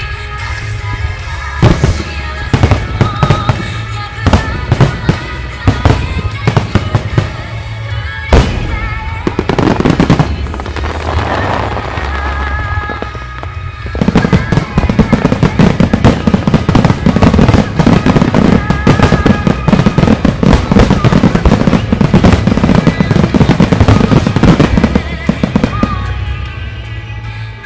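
Aerial fireworks shells bursting with music playing. Separate sharp bangs come in the first half, then about halfway in a dense rapid barrage of bursts and crackling runs for about ten seconds before dying away near the end.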